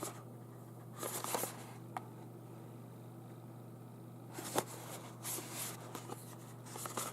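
Brief rustles and light scrapes of a small cardboard box of toothbrush heads being handled, in a few short bursts, over a steady low hum.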